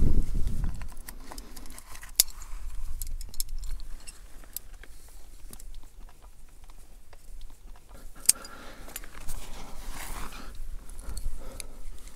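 Carabiners and climbing hardware on a harness clinking and clicking while a climber descends hand over hand on a knotted fixed rope, clipping in and out. The clinks come in irregular small clusters, with sharper knocks about two seconds in and again about eight seconds in, along with light scuffing against the rock.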